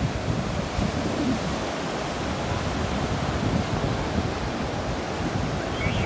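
Mediterranean surf breaking and washing up a sandy beach in a steady rush, with wind buffeting the microphone.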